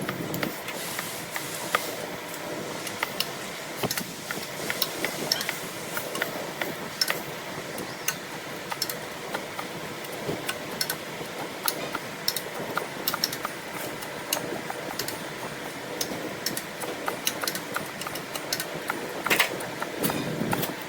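Scattered light clicks and knocks of automatic-transmission parts being handled on the bench, over a steady background noise.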